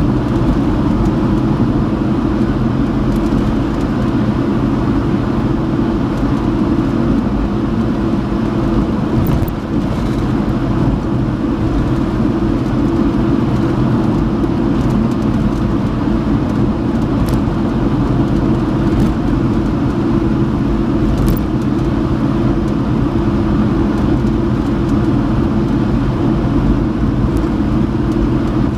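Steady road noise heard from inside a vehicle driving on a gravel road: the tyres rumble on the gravel with a low, even drone throughout. A few faint clicks come now and then.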